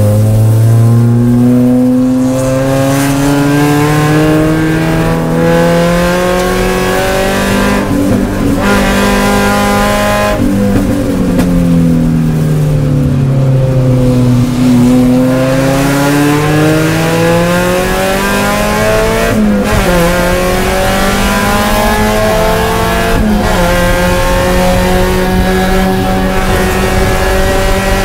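Spec Miata's four-cylinder race engine heard from inside the cockpit under hard acceleration. It climbs in pitch, eases off and falls in pitch about halfway through, then pulls hard again, with quick breaks at the upshifts.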